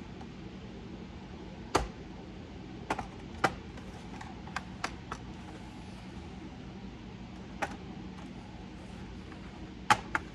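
Sharp, irregular clicks and taps of a tool and small parts against an open laptop's case, about nine in all, the loudest about two seconds in and near the end, over a steady low hum.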